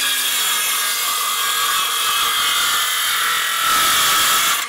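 Circular saw cutting through a wooden board, running steadily with a high whine and stopping abruptly at the end of the cut.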